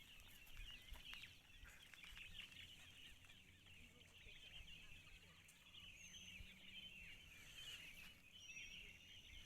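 Faint chorus of bird chirping: many short calls overlapping without a break, over a low rumble.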